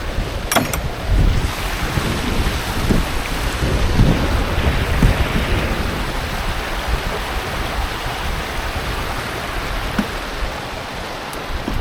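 Wind buffeting the microphone: a steady rushing noise with gusty low rumbles, and a brief click about half a second in.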